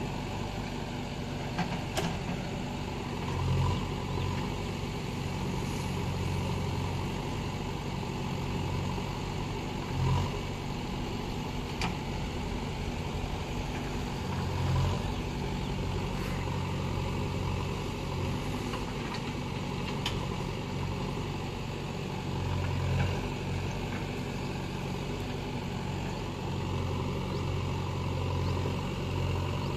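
JCB backhoe loader's diesel engine running steadily, rising in level every few seconds as the backhoe arm works under hydraulic load, digging into earth and a broken mud wall. A few sharp knocks come through now and then.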